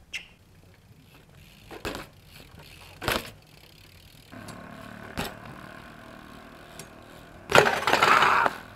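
BMX bike on smooth concrete: a few sharp knocks as the wheels touch down, then a steady rolling rush of the tyres. Near the end, a loud metal clatter about a second long as the bike drops onto the concrete on a bailed trick.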